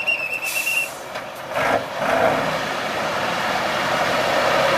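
Tatra 813 trial truck's engine working hard as the truck climbs, swelling in loudness about two seconds in and then holding. A short high steady tone and brief hisses come before it.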